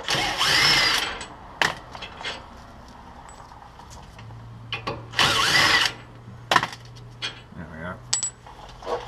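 A power tool's motor whirring in two bursts of about a second each, its pitch rising and falling, as it spins out the 18 mm bolts holding a wheel hub assembly, with a few sharp clicks of metal between the bursts.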